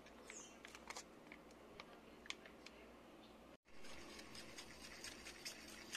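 Very faint sounds of a sauce being mixed: a few soft clicks, then, after about three and a half seconds, a metal fork stirring ketchup into a bowl of liquid with light ticks against the bowl.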